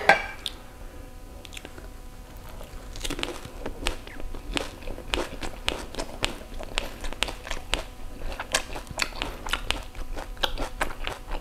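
Close-miked biting and chewing of a crisp fried pani puri shell: one sharp crunch as it is bitten at the start, then, from about three seconds in, a steady run of small crunching chews, several a second.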